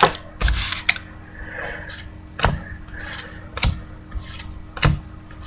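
Football trading cards being flipped through by hand: a sharp snap of card stock about once a second, with light rustling between.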